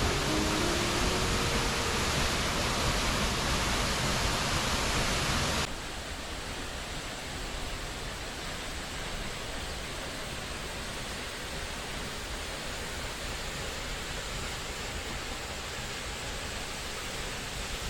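Waterfall pouring: a steady rush of falling water. About six seconds in, it drops suddenly to a quieter level and carries on steadily.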